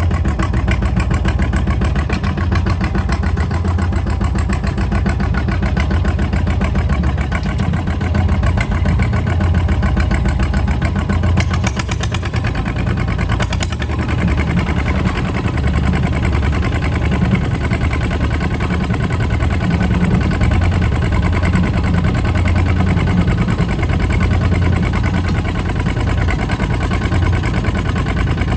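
Kubota ZT 155 DI walking tractor's single-cylinder diesel engine running steadily while pulling a trailer along a dirt road, a rapid, even exhaust beat.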